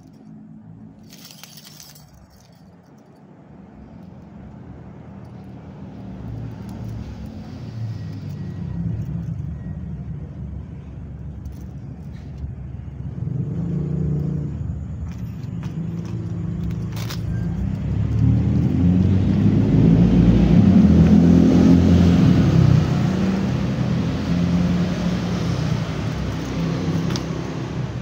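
A motor vehicle engine running in the background. It builds up gradually to its loudest about two-thirds of the way through, then eases off a little. A couple of sharp clicks come over it, one near the start and one about halfway.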